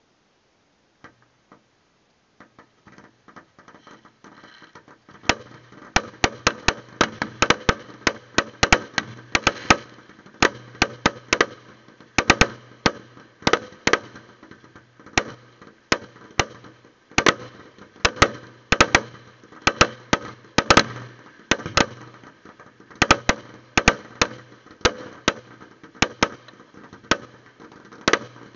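Fireworks display: a few scattered pops start about a second in, then about five seconds in it builds into a rapid, continuous barrage of loud bangs, several a second.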